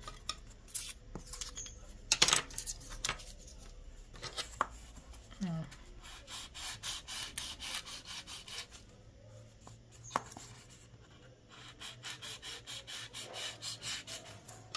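A blade cutting and shaving a styrofoam ball flat, heard as repeated rubbing, scraping strokes. They come in runs of about three to four a second, with a few sharper single scrapes between the runs.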